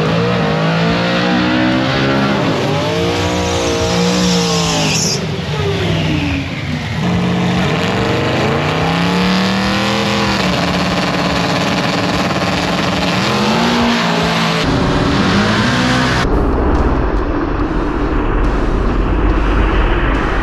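Drag-racing street car engine at full throttle, its pitch climbing and dropping several times as it shifts gears. The sound cuts abruptly a few times, and near the end gives way to a low steady rumble.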